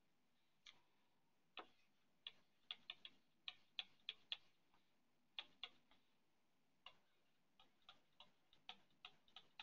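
Faint, sharp, irregular clicks of a stylus tip tapping and skidding on a tablet's glass screen during handwriting.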